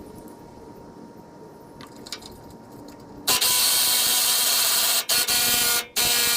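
Power tool run in three bursts, the first the longest, with short pauses between trigger pulls, as the bed bolts are worked loose.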